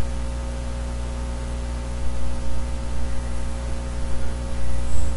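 Steady electrical mains hum with an even background hiss.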